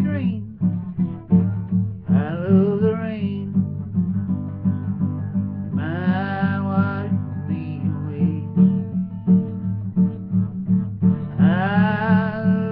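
Acoustic guitar strummed steadily while a man sings three long, drawn-out vocal phrases over it.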